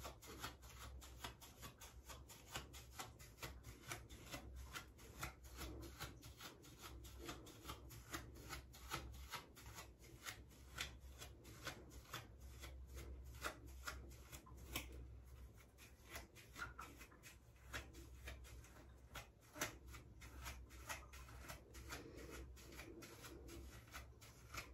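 A comb raking through short, thick hair, faint scratchy strokes repeated about three times a second.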